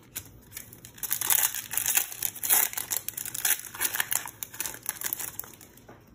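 Foil wrapper of a Pokémon TCG booster pack crinkling and tearing as it is opened by hand. A dense crackle starts about a second in and dies away near the end.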